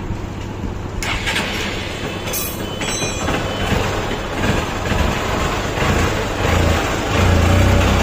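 Hero Xtreme's 150 cc single-cylinder engine running, freshly rebuilt with a new piston, rocker and valves, and sounding right without a knock. It gets louder about a second in, has a short clatter about two and a half seconds in, and drops off suddenly near the end.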